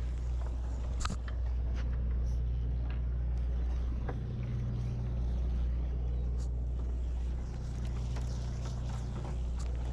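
Boat engine running steadily with a low hum, and a few short clicks or knocks on top, one about a second in and another past the middle.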